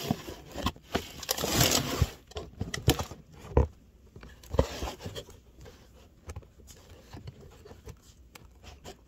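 Handling noise of a phone camera being moved and set down on a kitchen counter: scraping and rustling with a few sharp knocks in the first half, then only small scattered ticks.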